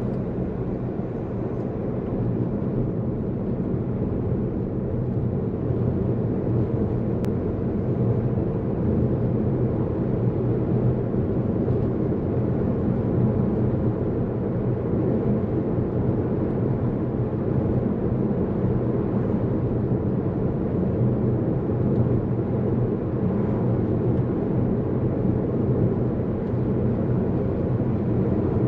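Car driving at highway speed, heard from inside the cabin: a steady low drone of engine and tyre rumble on asphalt, growing a little louder over the first several seconds.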